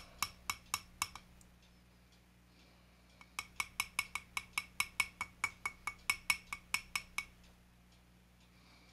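Steel hemostat forceps and a diecast car body clinking against the glass jar of citrus paint stripper in a steady rhythm, about four light clinks a second, as the body is jiggled in the stripper. The clinking breaks off about a second in, picks up again about two seconds later and stops about seven seconds in.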